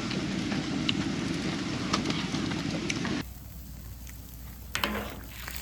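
Wood fire crackling under a cast-iron cauldron lid, with a dense low rumble beneath scattered sharp crackles. The rumble cuts off abruptly about three seconds in, leaving fainter crackles.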